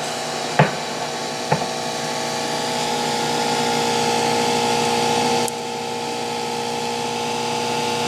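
Wanhao Duplicator 4 3D printer's cooling fan running with a steady whirring hum, blown over a freshly finished print to cool it. Two short clicks sound about half a second and a second and a half in, and the hum drops slightly in level a little past halfway.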